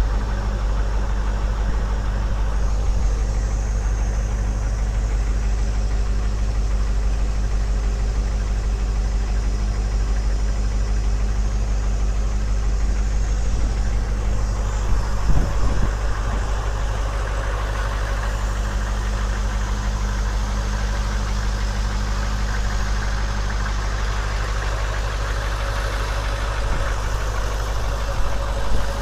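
AM General 6.5-litre diesel V8 of an M998 Humvee idling steadily, just started. A couple of brief knocks come about halfway through.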